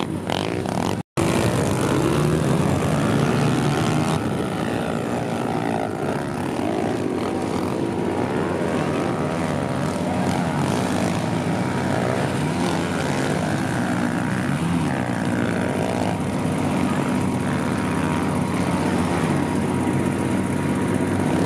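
Several 140cc pit bike engines racing, revving up and down over one another as the bikes ride the dirt track. The sound cuts out for an instant about a second in.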